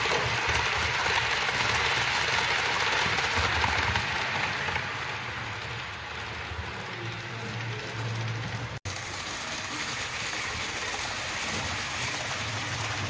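Model train running on the layout: a steady rolling hiss of wheels on the track with a low motor hum underneath, louder in the first few seconds. The sound cuts out for an instant about two-thirds of the way through.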